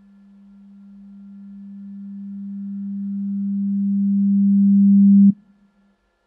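Electronic tone on one steady low pitch, swelling steadily louder for about five seconds, then cut off abruptly with a click, leaving a brief fading tail.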